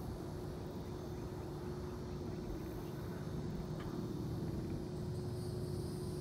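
Steady low hum of a distant engine over a low rumble, with a faint tick about four seconds in.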